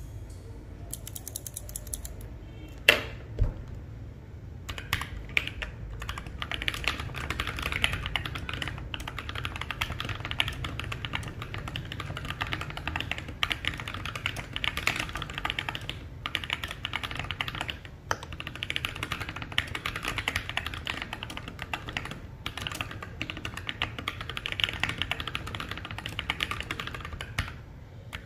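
Mechanical keyboard with lubed and filmed KTT Matcha switches being typed on: a few separate keystrokes, two louder ones about three seconds in, then a steady fast stream of key clacks.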